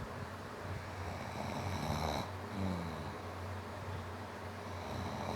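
Snoring in sleep: one rasping snore on the in-breath builds to about two seconds in and cuts off sharply, followed by a lower sound sliding down in pitch on the out-breath. The next snore begins near the end.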